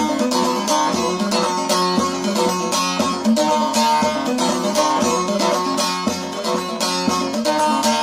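Bağlama (long-necked Turkish saz) played with a plectrum in quick, steady strokes, carrying an instrumental melody of an Alevi duaz imam hymn.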